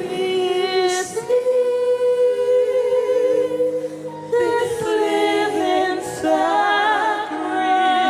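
Slow worship singing: long held notes with vibrato, sung without clear words over soft sustained music.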